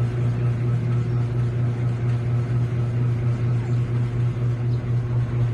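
Steady low mechanical hum, with a faint short high squeak about three-quarters of the way through.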